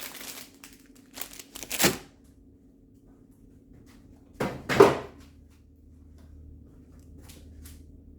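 Food packaging and containers being handled: two short bursts of crinkling and knocking, the second about four and a half seconds in the loudest, over a faint steady hum.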